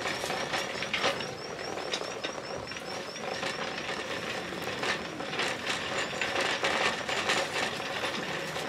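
Plastic shopping cart rolling over a tiled store floor, its wheels and basket rattling with a steady run of small clicks and knocks.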